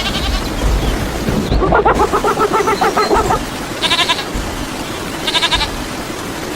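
A wavering, bleat-like animal call lasting about two seconds, starting a couple of seconds in, over a steady background hiss. Two short, high chirping bursts follow, around four and five and a half seconds.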